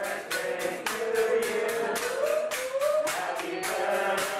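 Background music: an upbeat song with a voice singing over a quick, steady percussion beat.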